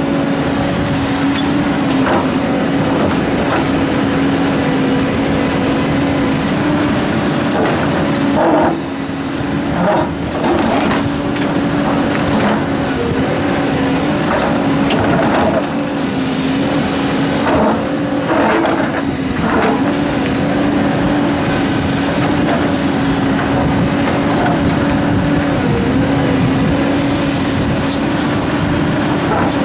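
Komatsu excavator diesel engine running steadily under working load, its pitch dipping slightly now and then. Several clusters of knocks and clanks come through, about a third of the way in and again past halfway, as rocks are handled.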